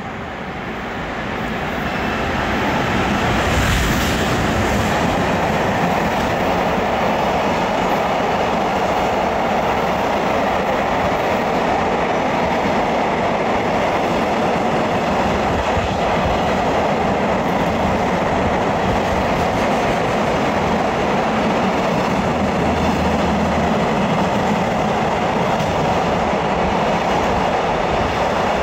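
Container freight train running through the station: the steady noise of its wagons' wheels on the rails builds over the first few seconds as it draws level, with a brief sharper rush about four seconds in, and then holds steady as the wagons stream past.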